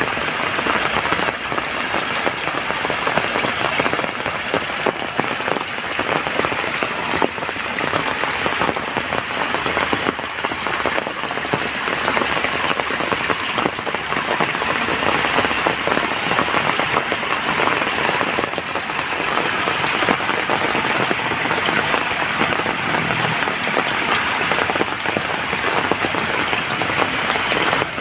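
Steady rain falling, a dense continuous patter of raindrops on surfaces.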